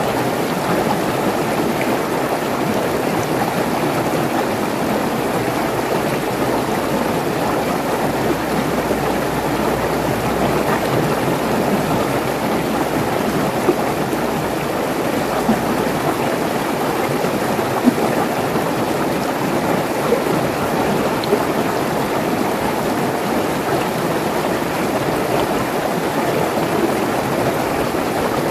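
Mountain stream rushing over rocks in a small cascade, a steady full rush of water with a few brief, louder splashes in the middle.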